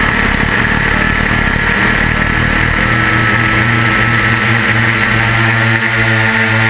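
Small multirotor drone's electric motors and propellers running steadily, heard close through its onboard camera as a constant whine with a slight drift in pitch.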